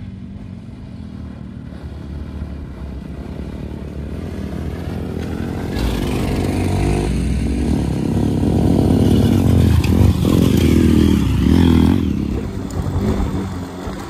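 Two dirt bike engines revving as the bikes ride up a dirt track, growing steadily louder as they approach. The sound is loudest around ten seconds in, then drops away suddenly about twelve seconds in.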